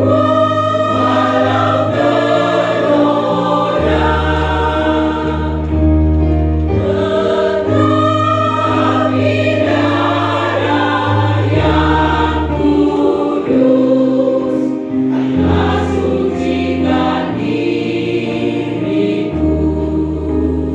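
Church choir singing a hymn in parts, with held chords changing every second or two.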